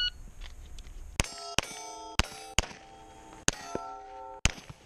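A rapid string of about six Glock pistol shots, each followed by the ringing clang of a struck steel target plate.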